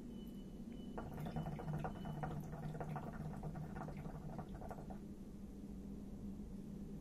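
Hookah water bubbling as smoke is drawn through the hose: a rapid gurgle that starts about a second in and stops about four seconds later.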